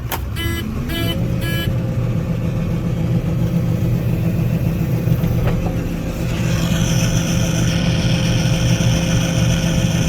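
John Deere 9500 combine running steadily. Three short electronic beeps sound about a second in, then a steady whine sets in over the engine, and a higher whine joins after about six and a half seconds.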